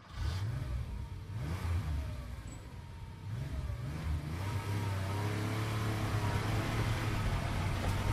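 A car engine revving up and down a few times, then settling into a steady drone from about halfway through.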